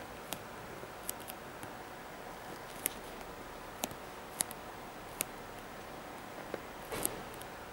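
Scattered sharp little clicks and ticks, about nine of them, over a steady hiss: handling noise from fingers pressing and flexing a leather sneaker upper.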